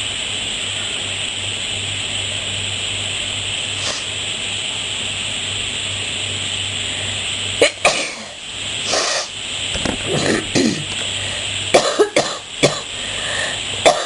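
A person coughing in bouts, a cold-and-bronchitis cough: a few hard coughs about halfway through, then a quick run of several more near the end. Before the coughing there is only a steady hiss and low hum.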